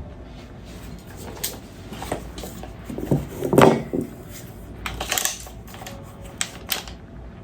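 Handling noise from airsoft rifle parts: scattered clicks and knocks, with a louder clattering knock about three and a half seconds in and a short hissy scrape around five seconds.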